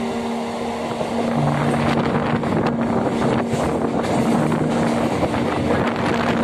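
Suburban electric train running at speed, heard from its open doorway: a steady rush of wheel, rail and wind noise with irregular clatter. A few held musical notes play quietly underneath.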